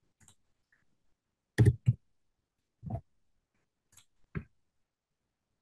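Computer mouse and keyboard clicks: a few separate taps with a dull knock on the desk, the loudest a close pair about one and a half seconds in.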